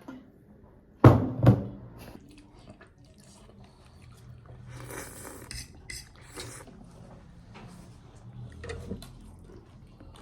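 Household objects being handled: two loud clattering knocks with a short ring about a second in, then softer clicks, knocks and a brief rustle.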